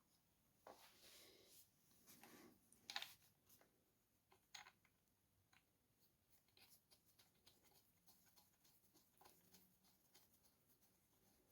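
Near silence broken by a few faint clicks and taps of small metal adapter tubes being handled, the loudest about three seconds in.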